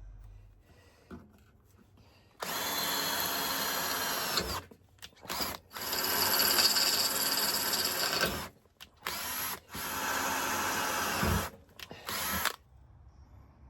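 Electric power tool motor run in repeated bursts of a few seconds each, about six starts and stops with short pauses between, its pitch sagging slightly as it bites.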